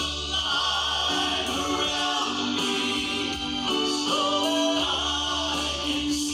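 Gospel song sung by several voices in harmony, with long held notes over a steady low accompaniment.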